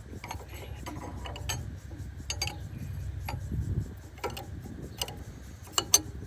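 Irregular metallic clicks and clinks of hand wrenches working on bolts, over a steady low rumble, with the sharpest pair of clicks near the end.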